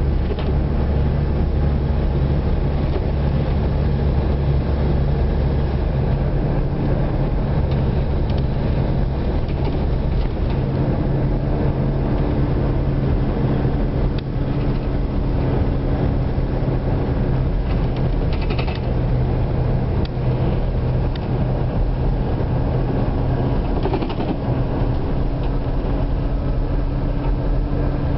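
Boat engine running steadily with a low hum. Its tone shifts slightly about six seconds in and again about eleven seconds in.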